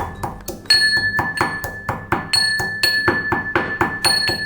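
Pestle pounding roasted cinnamon, cloves and black peppercorns in a mortar, about four strikes a second, with a steady high ring carrying between the strikes.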